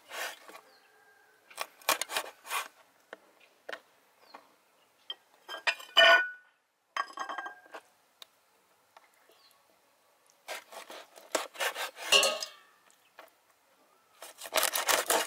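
Cleaver chopping through pigeon meat and bone onto a wooden chopping board, in short bursts of sharp chops. Between the bursts come a few clear ringing clinks, the loudest about six seconds in.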